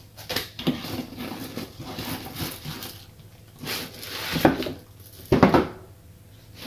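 Foam packing blocks rubbing and scraping against the inside of a cardboard box as a boxed unit is worked up and out. Two louder scrapes come in the second half.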